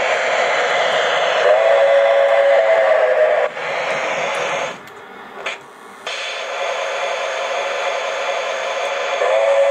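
Lionel model steam locomotive sound system blowing a chime steam whistle for about two seconds, starting about a second and a half in, over a steady hiss as the locomotive runs past and stops. The sound drops away briefly near the middle, and the whistle starts again at the very end.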